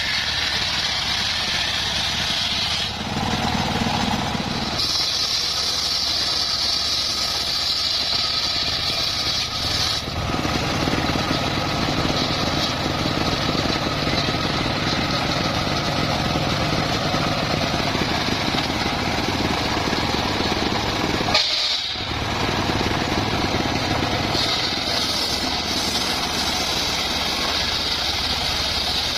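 Engine-driven homemade circular sawmill running steadily with a constant low drone. A louder high hiss comes in about five seconds in, fades, and returns near the end.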